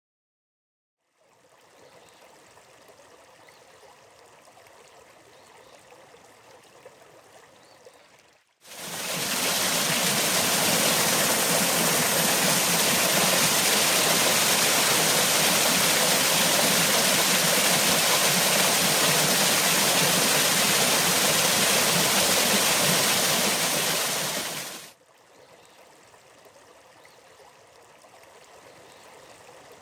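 Running water of a stream. After about a second of silence comes a gentle flow; at about nine seconds it cuts abruptly to a much louder rush of water, which runs for about sixteen seconds before cutting back to the gentler flow.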